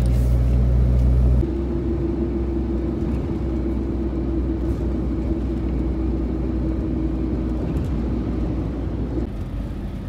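Road noise and engine hum inside a moving vehicle's cabin. About a second and a half in, the heavy low rumble drops to a lighter rumble with a steady hum, and the hum stops near the end.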